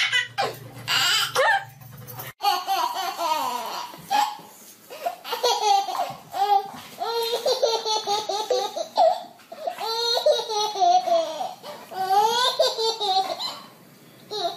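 A baby laughing hard in repeated bursts of giggles and belly laughs. A low hum stops suddenly about two seconds in.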